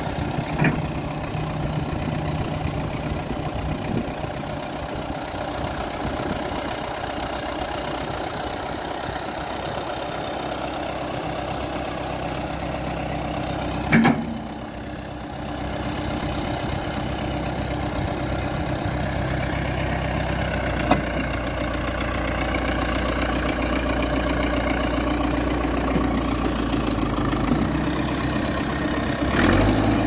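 1992 JCB 214 backhoe loader's diesel engine idling steadily, with a few sharp clicks, the loudest about halfway through. Near the end the engine runs louder.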